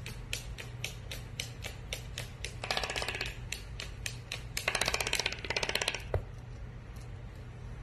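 Toco toucan hopping on a hardwood floor, its feet clicking about four times a second, with two short rattling bursts about three and five seconds in, over a steady low hum.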